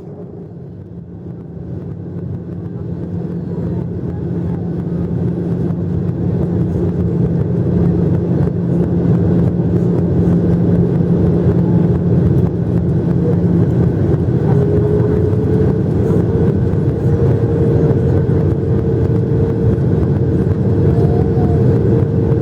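Boeing 737-800's CFM56-7B jet engines heard from inside the cabin, spooling up over several seconds to a loud steady rumble with a fan whine that rises slightly later on, as at take-off thrust.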